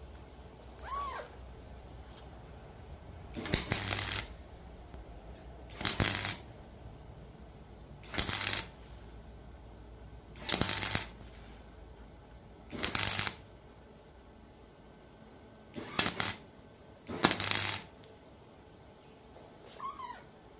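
Gasless flux-core MIG welder laying tack welds on a steel mower body: seven short bursts of crackling arc, each about half a second, one to three seconds apart, with the welder's hum under each burst.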